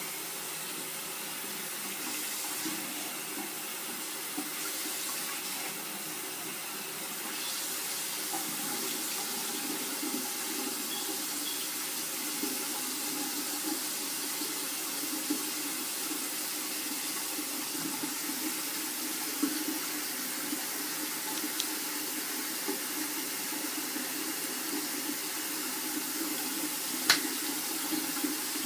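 Water running steadily, as from a tap or shower, while hair is washed under it, with a few small knocks and one sharp click near the end.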